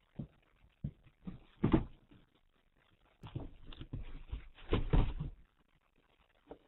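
A cat jumping into and scrambling about inside cardboard boxes: irregular thumps and scraping on the cardboard. The loudest come about a second and a half in and again around five seconds in.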